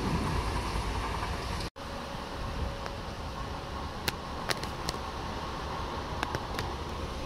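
Tyne and Wear Metro train pulling away from the platform, its low rumble fading. Under two seconds in the sound drops out abruptly, then a steady outdoor hum follows with a few sharp ticks.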